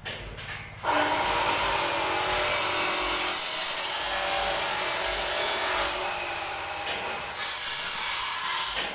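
Handheld power tool running at full speed: it starts about a second in and runs steadily for about five seconds. It drops off for about a second, then runs again briefly until near the end.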